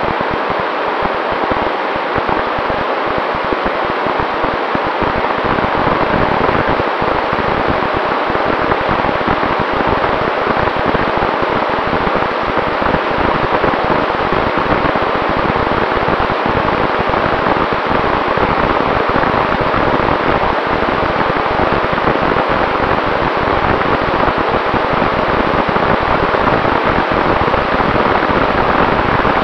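Steady, loud rush of air over the onboard camera of an RC flying wing in flight, mixed with the noise of its Sunnysky 2212 brushless motor and APC 7x5 propeller, which adds a faint steady whine.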